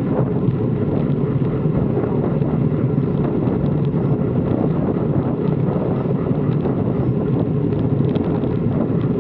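Steady rush of wind over the microphone of a camera mounted on the handlebars of a moving road bike, mixed with road noise.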